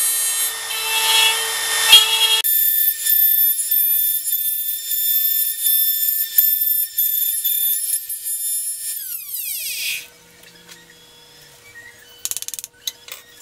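Electric router mounted under a board, running at high speed with a high whine while a small wooden disc is pressed onto the bit and cut. About nine seconds in it is switched off and the whine falls as the motor spins down, followed by a few sharp clicks.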